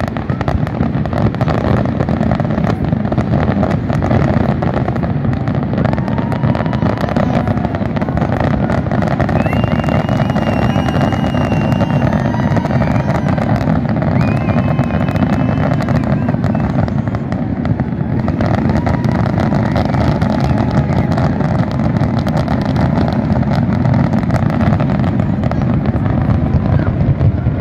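Big fireworks display: a dense, unbroken barrage of bangs and crackles. A few high held tones sound over it about ten to fourteen seconds in.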